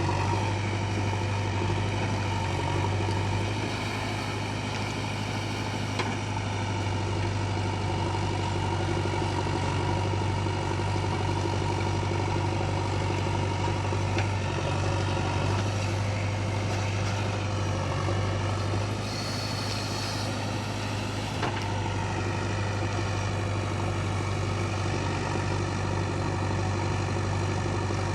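Heavy diesel engine of a backhoe loader or farm tractor running steadily under work. About two-thirds of the way in, the note briefly dips and shifts, with a faint high whine.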